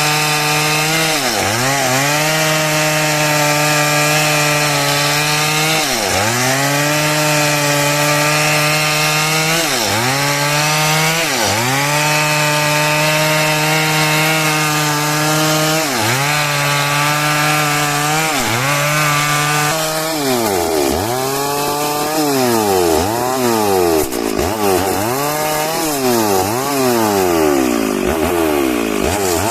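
Stihl MS 382 two-stroke chainsaw running at high revs while cutting through wood. Its pitch dips sharply and recovers every few seconds, then about once a second in the last third.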